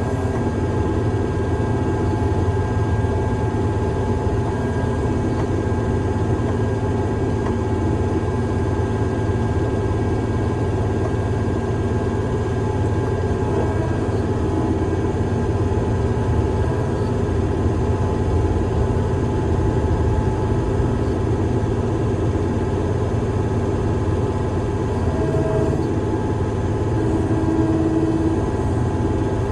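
Heavy-equipment engine running steadily, a constant low drone with a faint steady whine over it.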